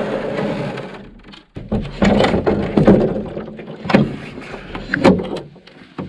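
Camping gear being handled and packed: a long rustling scrape, then a run of uneven knocks and scrapes.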